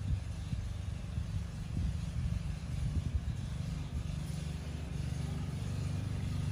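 Low, steady rumble with irregular low thumps and nothing higher-pitched above it.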